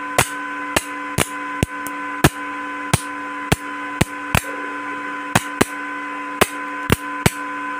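ECO-250 IGBT inverter welding machine's output being sparked: about fifteen sharp cracks, irregular at roughly two a second, over the steady hum and whine of the running machine. This is a load test of the repaired IGBT gate-driver card; the IGBTs survive the sparks, which shows the drive is working.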